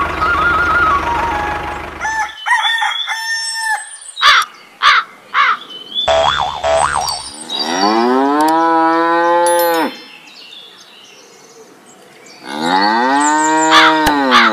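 Two long cow moos, each rising then falling in pitch, the second near the end. Before them, a flute-like tune cuts off about two seconds in, followed by a few short cartoon-style effects.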